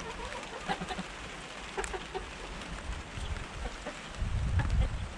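Backyard hens clucking softly over the patter of rain, with scattered sharp ticks. A low rumble comes in about four seconds in.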